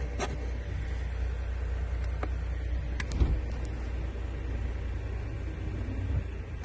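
Steady low rumble of a Toyota 4Runner running, heard inside its cabin, with a few light clicks or rattles about a quarter second, two seconds and three seconds in.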